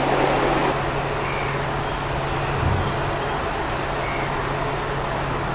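Water running from a garden hose into a plastic foam-cannon bottle, a steady hiss over a low, even hum.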